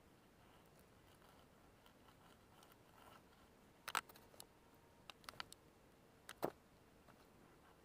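Faint scratching of a pointed tool engraving a block of chalk, with a few sharp clicks and taps: the loudest about four seconds in, a few more a second later, and a double click about six and a half seconds in.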